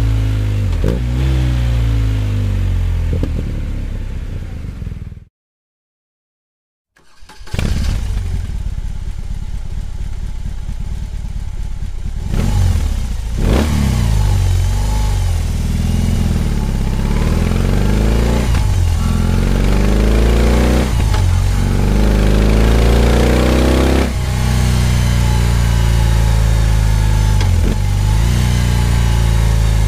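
A BMW R 1250 R boxer twin with an HP Sports silencer, its revs falling away, cuts off about five seconds in. After a short silence, a BMW R 18's 1802 cc boxer twin idles with a lumpy beat and from about halfway is blipped up and back down repeatedly, about every two to three seconds.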